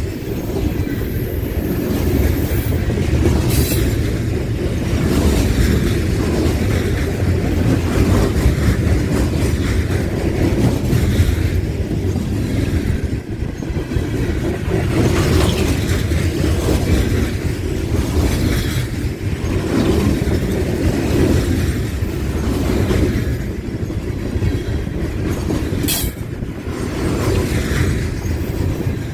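Loaded coal train's freight cars rolling past close by: a steady heavy rumble of steel wheels on the rails with a rhythmic clickety-clack. A brief high-pitched squeal comes twice, a few seconds in and near the end.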